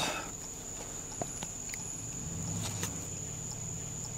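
A sharp knock, then a low, steady vehicle hum from about two seconds in.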